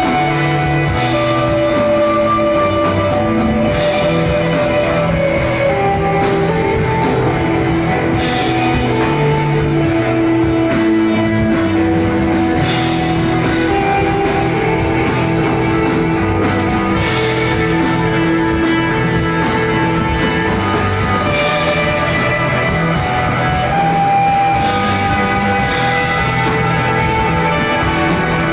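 Live instrumental desert rock jam by a band: electric guitar playing long sustained notes over bass and drum kit, with cymbal crashes every few seconds.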